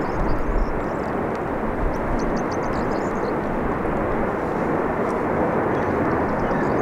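An Airbus A321neo's jet engines running at taxi power, a steady even rumble and hiss.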